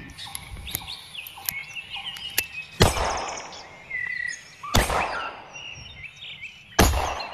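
A .38 Special revolver firing three single shots, each a sharp crack, about two seconds apart. Birds chirp faintly in the background.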